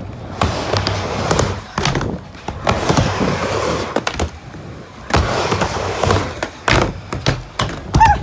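Skateboard wheels rolling on a plywood mini ramp in three runs of a second or two each. Sharp clacks of the board hitting the ramp and its metal coping come between the runs, the loudest near the end.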